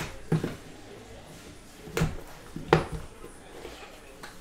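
Hands handling a cardboard trading-card box, sliding the inner box out of its outer sleeve: several sharp taps and scrapes of cardboard, four louder ones spread across the few seconds.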